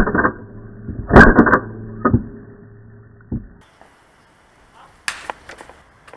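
Airsoft gunfire: a loud shot at the start, a quick burst of several shots about a second in, single shots after that, and a string of sharper snaps near the end. A steady low hum runs under the first few seconds.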